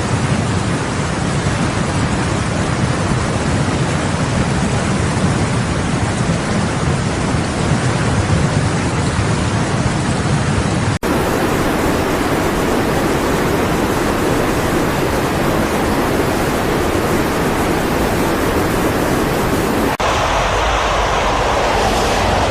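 Loud, steady noise of heavy water, with no distinct events, broken into three stretches by sharp cuts about 11 and 20 seconds in.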